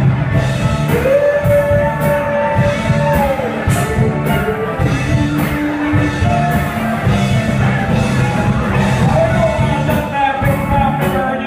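Live band with banjo, acoustic guitar, mandolin and saxophone playing a song with a sung vocal, amplified in a small bar room.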